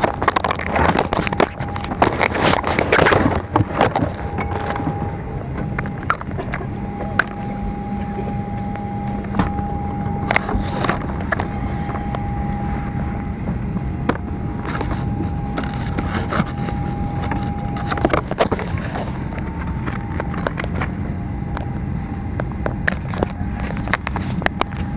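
Steady airliner cabin noise from the ventilation running, with a constant whine and a low hum over it. The whine falters briefly about three quarters of the way through. Knocks and rustles of bags and handling come in the first few seconds.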